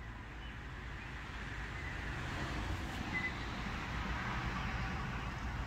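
Distant road traffic: a steady rush that grows louder about two seconds in, with a few short high bird chirps.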